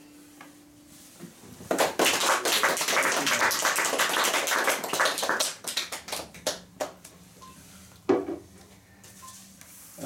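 The last guitar chord dies away, then a small audience applauds for about four seconds, thinning to a few scattered claps. There is a single knock near the end.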